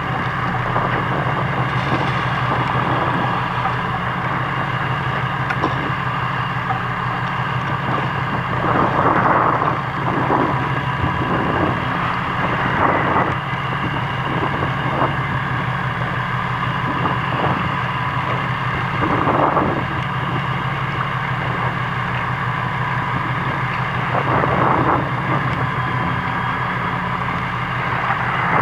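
Fishing boat's engine running steadily at sea, a constant low hum, under wind and water noise that swells into louder rushes every few seconds.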